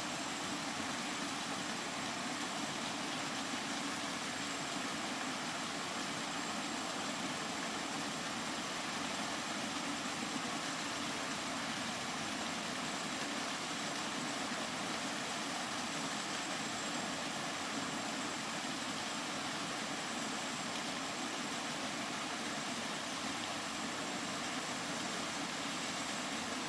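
Steady, unbroken rainfall as a continuous even hiss, with no separate drops, gusts or thunder standing out.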